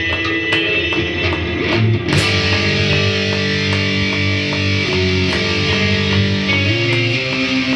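Heavy, distorted electric guitar chords from an Ibanez with Burstbucker pickups through the Earthquaker Devices Astral Destiny pedal, playing a slow, doomy heavy part. A beat ticks along about twice a second, with a crash about two seconds in.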